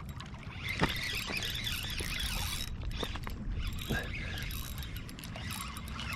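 Fishing reel cranked quickly to bring in a hooked bass, a fast mechanical chatter with a few sharp clicks.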